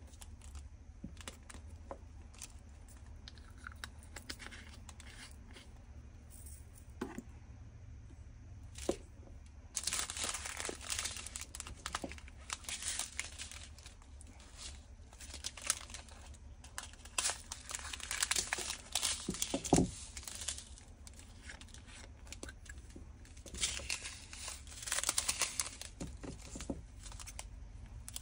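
Small plastic zip bags of diamond painting drills crinkling as they are handled. The crinkling comes in bursts after a quieter first third, with a soft knock about two-thirds of the way in.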